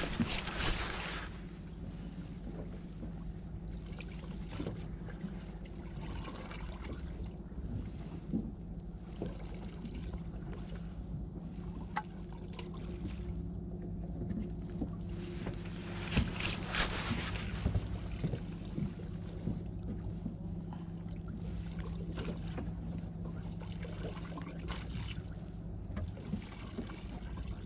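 Boat engine idling with a steady low hum. Two brief hissing bursts stand out, one right at the start and one about sixteen seconds in.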